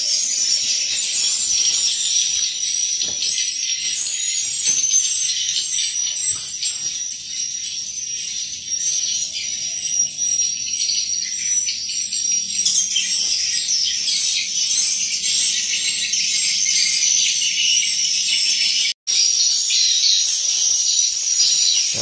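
Swiftlets twittering, a dense, continuous high-pitched chirping that fills the swiftlet house, with a split-second dropout near the end.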